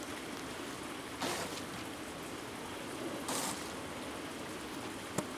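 Steady outdoor background hiss. Two short, louder bursts of hiss come about a second in and again a little past three seconds, and a sharp click comes near the end.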